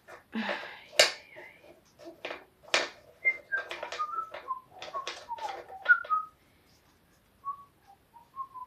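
Crackling and tearing of a foil booster-pack wrapper being opened and handled, with short whistled notes at changing pitches over it. The crackling stops about six seconds in, and a few more whistled notes follow near the end.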